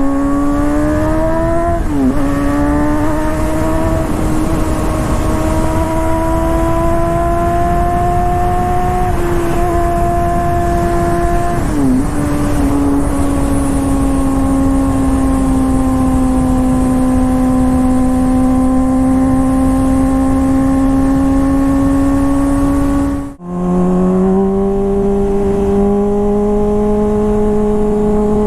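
Honda CBR600RR inline-four through an aftermarket Toce exhaust under way: the engine note climbs, drops sharply twice with upshifts about 2 and 12 seconds in, then holds a steady cruise. Near the end the sound cuts out for a moment and comes back at a lower pitch. Wind rushes steadily underneath.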